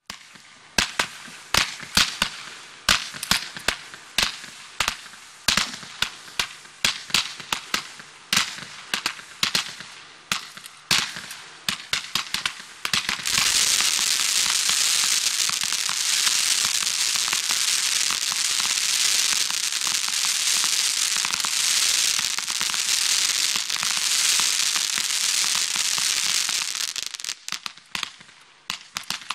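'Rock'n Roll' 100-shot fireworks battery firing: a fast run of sharp shots, about two to three a second, then from about thirteen seconds in a dense, continuous loud crackling from its crackling comets, which thins back into separate shots near the end.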